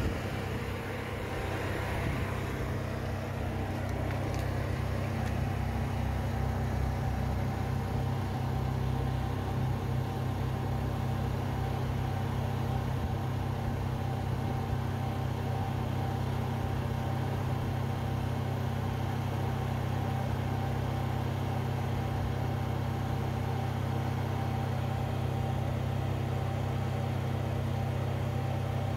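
Kubota 479cc two-cylinder diesel engine of an MQ Whisperweld SDW-225SS welding generator running steadily at a constant speed.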